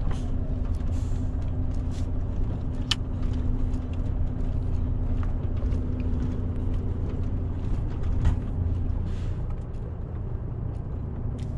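Diesel engine of a tractor-trailer truck running steadily as a low rumble with a steady hum that fades about nine seconds in, with a few sharp clicks over it.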